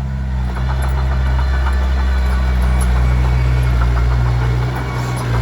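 Komatsu D21P bulldozer's diesel engine running steadily, with light clattering over it.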